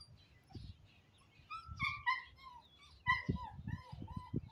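A dog whining in short, high, falling whines, in two bouts about one and a half and three seconds in, as it strains on its tie-out line toward a cat.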